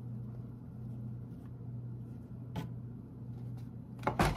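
Steady low hum with one faint click, then two sharp knocks near the end as the tilt-head of a KitchenAid Artisan stand mixer is lowered into place over the bowl.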